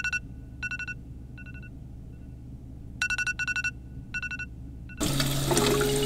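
Electronic telephone-style ringtone trilling in two short bursts about three seconds apart, each followed by quieter echoing repeats. Music comes in about five seconds in.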